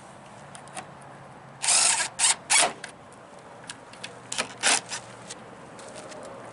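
A handful of short, sharp bursts of tool noise from work on the truck's side fairing: a cluster about two seconds in and a pair about four and a half seconds in.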